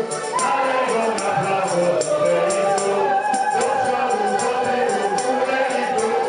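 Live dance-band music: accordion and singing over a steady percussion beat.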